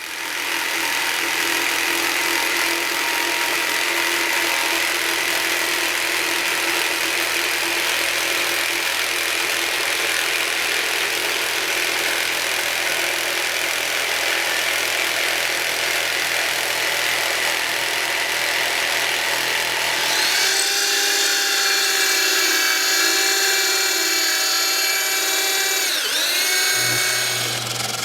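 Electric power tool motor running steadily; about two-thirds through its whine changes to a different, more tonal pitch, and near the end the speed dips briefly and comes back up.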